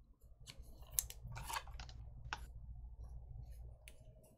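Faint, irregular clicks and a short rustle about one and a half seconds in, as trading cards and foil pack wrappers are handled, over a low steady hum.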